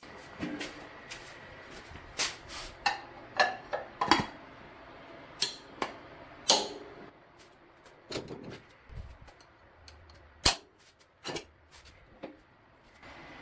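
Valve cover being fitted to the cylinder head of an air-cooled VW Type 1 engine, its wire bail clip levered into place: a run of irregular metallic clicks and knocks, the sharpest about four, six and a half and ten and a half seconds in.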